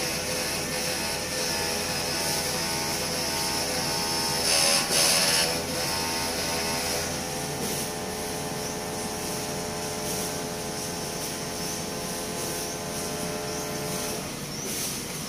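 Dump truck's electric cab-tilt pump running steadily as it raises the cab, a mechanical whine with several steady tones. There is a louder burst about five seconds in, the whine shifts to a new steady pitch about seven seconds in, and it cuts off about a second before the end.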